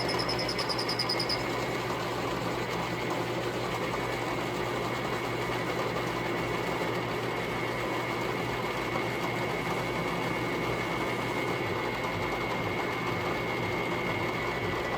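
Metal lathe running steadily while it turns down the shoulder of a 1/2-inch bolt.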